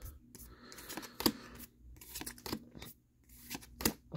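Pokémon trading cards slid and flicked against each other by hand as a stack is flipped through card by card: a handful of short, sharp card snaps with a faint rustle between.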